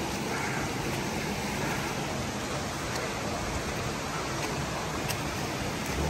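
Steady rushing of flowing water, an even hiss without breaks.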